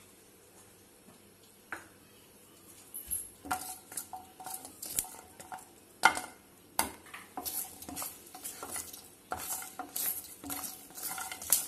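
Garlic cloves being stirred with a wooden spatula in a dry, unoiled pan while they roast: irregular scraping of the spatula across the pan and knocks of the cloves, starting about three and a half seconds in, with one louder knock a few seconds later.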